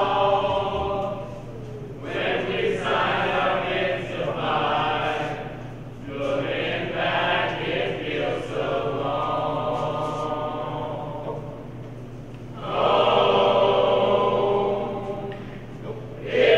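A mixed group of men and women singing together, unaccompanied, in held phrases with brief pauses between them; the loudest phrase comes near the end.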